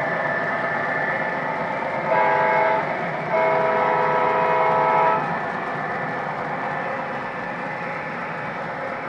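O-gauge model freight train running on three-rail track with a steady rolling rumble. Its electronic sound system sounds a diesel horn, a short blast about two seconds in and a longer blast about a second later.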